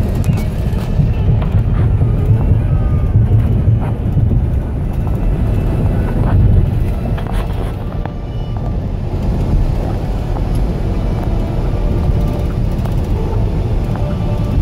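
Steady low rumble of road and engine noise inside a moving van's cabin.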